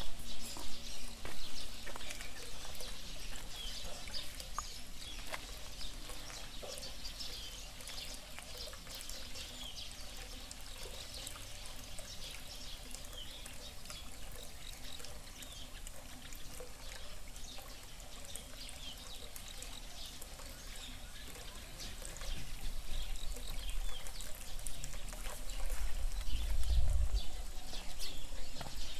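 Water trickling steadily, with many small scattered chirps over it and a low rumble near the end.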